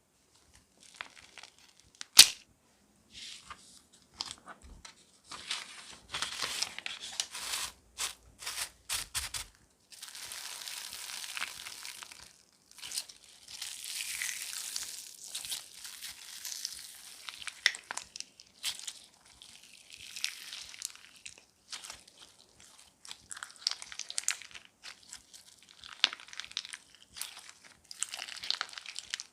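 Crunchy slime being pressed and stretched by hand, crackling and popping in irregular bursts with many sharp clicks. One sharp pop about two seconds in is the loudest sound.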